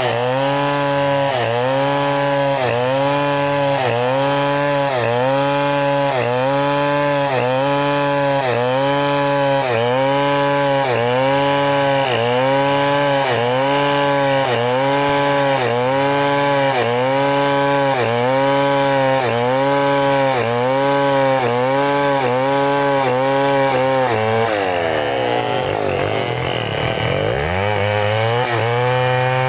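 New West 070 two-stroke chainsaw ripping lengthwise through a log under load, its engine pitch rising and falling about once a second as it cuts. Near the end the engine speed drops steeply and then climbs back as the cut reaches the end of the log.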